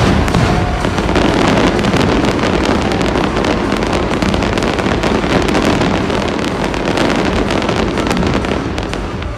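A dense fireworks barrage: many overlapping bangs and crackles from low volleys and aerial shells bursting in quick succession, merging into one continuous loud rumble that eases slightly near the end.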